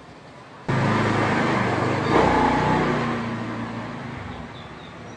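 A motor vehicle engine starts loud about a second in, revs up and then gradually fades away.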